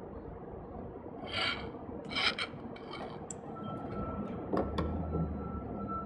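Clear plastic pipe handled by gloved hands and fitted into a white PVC elbow: two short scrapes of plastic rubbing about a second and two seconds in, then a few light plastic clicks and taps.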